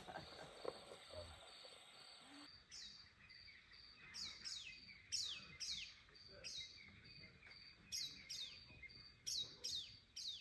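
African bush ambience: an insect chirps steadily at about three pulses a second. From about two and a half seconds in, a bird gives a dozen or so sharp calls, each sliding quickly downward.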